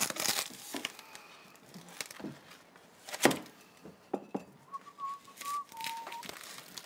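Kitchen clatter, scattered knocks of dishes and utensils with one sharp clack about a third of the way in. Then a person whistles two notes, a longer one followed by a shorter, lower one.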